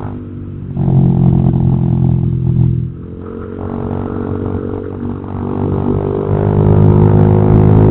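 Honda Vario 150 scooter's single-cylinder engine running through an aftermarket replica ('KW') exhaust as it is ridden. The throttle opens about a second in, eases off near three seconds, and builds again to its loudest in the last two seconds.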